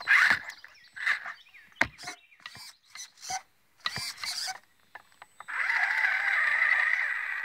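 Electric ECX Barrage Gen2 RC crawler on the slick painted hood of a car: a few short, irregular scuffs and clicks, then from about five and a half seconds a steady whirring as the motor runs and the WD40-treated tyres spin on the metal.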